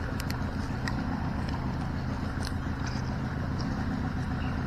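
A motor running with a steady, even low hum, and a few faint clicks over it.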